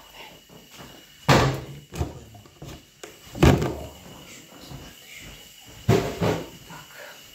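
Three loud knocks about two seconds apart, each followed by a short ringing tail, with a few lighter clunks between them: hard objects being set down or shut while working in a kitchen.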